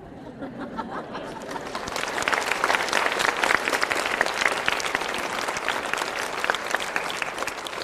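A congregation applauding in a large church hall. A murmur of voices at first gives way to clapping that swells over the first couple of seconds and then carries on steadily.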